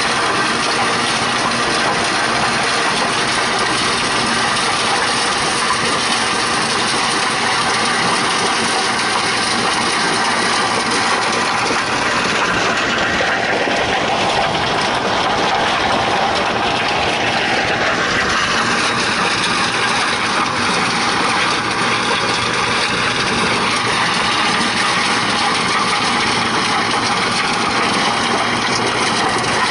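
Tractor engine running steadily while driving a PTO-powered stone crusher through stony ground. About halfway through, the engine's pitch rises and then falls again.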